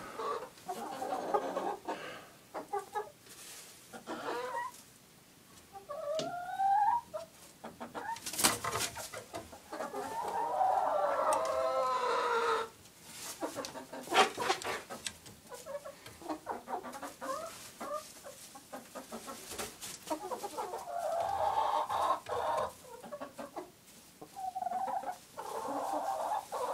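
Hens clucking and giving longer drawn-out calls, some rising, some falling. There are a couple of sharp knocks about eight and fourteen seconds in.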